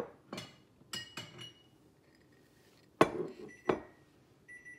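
Ceramic Christmas plates and a drinking glass clinking as they are handled and set down on a stone countertop: a few light clinks in the first second and a half, then two louder ones about three seconds in, the last leaving a brief high ring.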